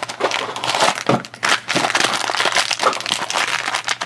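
Plastic blind bag crinkling and crackling as hands pull it from its cardboard carton and work it open, a dense run of sharp crackles.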